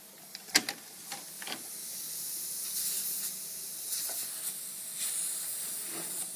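A few clicks as the trunk latch closes, then a steady hiss of compressed air escaping from a crack in the Mercedes S500 trunk latch solenoid's nipple, growing louder over the first couple of seconds. The leak keeps the PSE pump running too long, so the car disables the trunk close assist.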